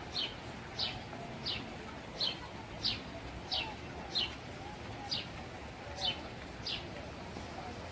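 Chipmunk giving its repeated chip call: short, high, downward-sliding chips at a steady pace of about one and a half a second.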